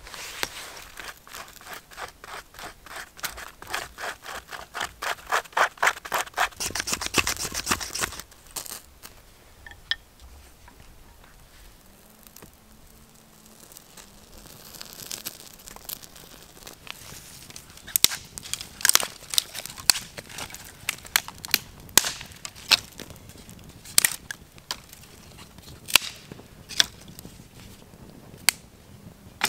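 A rapid run of scraping strokes, about four a second, growing louder and stopping about eight seconds in. Later a newly lit campfire of small sticks crackles, with sharp irregular pops.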